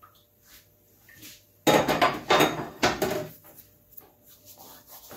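A plastic measuring scoop knocks and clatters against a ceramic mixing bowl as the last of the dry ingredients is emptied in, with a few sharp strikes over about a second and a half. Faint rustling of dried thyme being rubbed between the palms follows.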